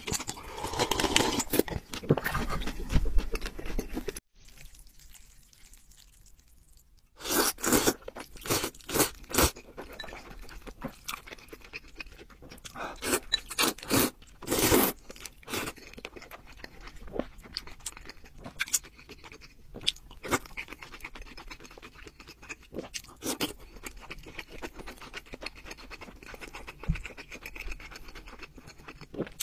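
Close-up eating sounds: broth sipped and noodles slurped from a bowl, with chewing between, in short separate bursts. A pause of about three seconds comes a few seconds in.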